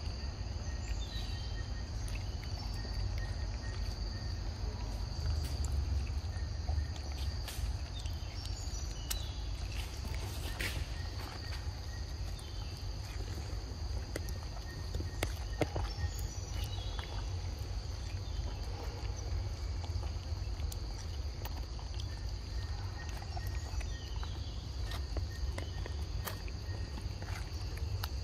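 Forest ambience dominated by a steady, high-pitched insect drone, with short chirps and scattered small clicks over a low rumble.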